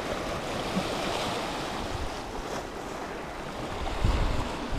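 Small sea waves washing and breaking over a seaweed-covered rocky shoreline in a steady surf wash. Near the end, low rumbles of wind buffeting the microphone come in over it.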